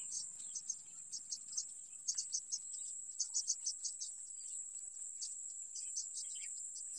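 Insects chirping: a steady high-pitched drone with rapid short chirps over it, several a second.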